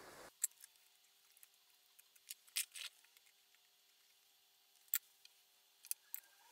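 A few faint, sharp clicks and taps, scattered and irregular: small tools and parts being handled while wires are resoldered onto a potentiometer.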